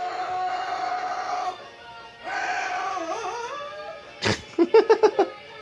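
Amazon parrot calling: two long, drawn-out wailing calls, the second sliding down in pitch at its end, then a sharp sound about four seconds in and a quick run of short, choppy calls.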